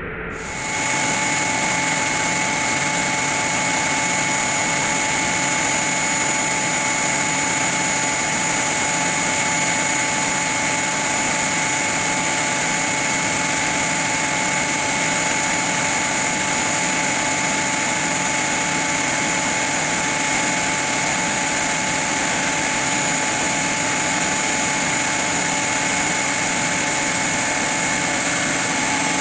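CNC milling machine running steadily while milling a gear with an indexable-insert cutter: an even mechanical noise with several steady whining tones over it, coming in about a second in.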